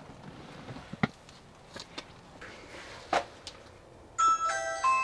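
Video doorbell chime playing a short tune of several clear notes, starting near the end. Before it come two brief, sharp thumps, about a second and about three seconds in.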